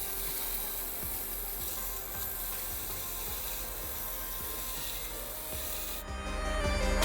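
Steady rasping, abrasive metal-working noise, like filing or sanding, under background music. The rasping stops about six seconds in, leaving the music louder.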